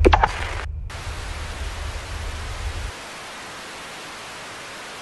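Steady hiss of VHS tape static, the snow of a video tape running blank. It opens with a brief loud sound falling in pitch and a split-second dropout, and a low rumble under the hiss cuts out about three seconds in.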